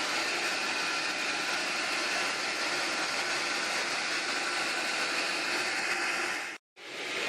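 Sawmill running and cutting lengthwise through a nyatoh log: a steady, dense noise. It drops out completely for a moment near the end, then starts again.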